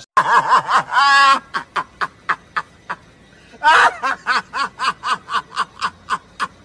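A man laughing hard: a loud high-pitched outburst, then a run of short rhythmic laugh pulses at about four a second, and a second loud outburst a little past halfway, followed by another run of pulses.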